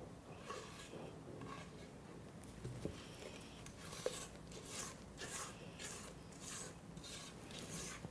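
Faint, repeated scraping of a spatula against a stainless steel mixing bowl as thick cake batter is scraped out into a bundt pan. The strokes come more often in the second half, with a couple of light clicks.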